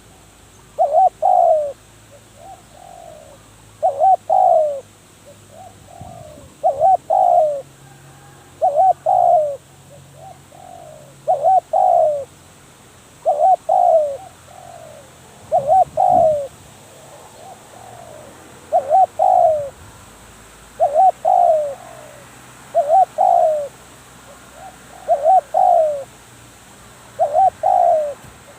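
Spotted dove cooing over and over, one phrase about every two to two and a half seconds, each a pair of strong coos followed by a softer trailing note.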